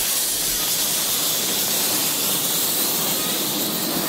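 Miniature live-steam locomotive hissing steadily as it passes, with its ride-on passenger cars rolling along the track behind it.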